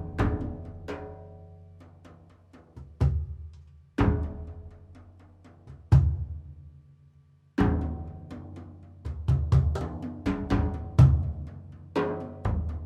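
Improvised solo percussion: struck drums with low, ringing, drawn-out tones. At first there are single loud hits a second or two apart, each left to die away; from about eight seconds in the strikes come in a faster, denser run.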